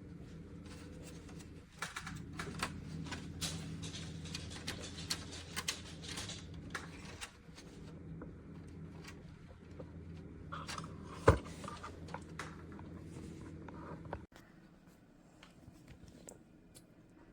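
Clicking and tapping handling noises over a steady low hum, with one sharp knock about eleven seconds in. The hum cuts off suddenly about fourteen seconds in.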